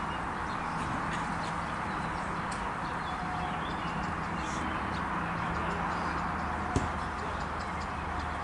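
Outdoor ambience of a small-sided football game on artificial turf: a steady background hiss with faint scattered knocks, and one sharper knock about seven seconds in.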